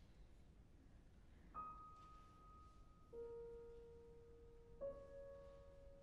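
Grand piano playing a quiet, slow introduction: three single notes about a second and a half apart, each left ringing, the first one the highest.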